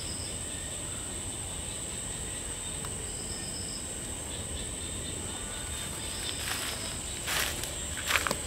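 Night insects calling: a steady high-pitched cricket trill, with a short pulsed chirp three times, about every three seconds. Near the end come a few footsteps on dry leaves.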